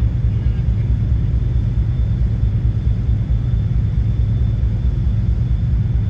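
Steady, loud low rumble, continuous and unbroken, with a faint thin high whine held on one note above it.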